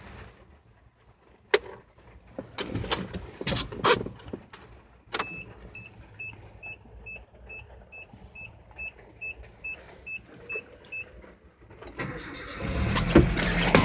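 Clunks and a door-like thud, then the Nissan pickup's warning chime beeping evenly about two and a half times a second. Near the end the engine cranks and starts, running loudly.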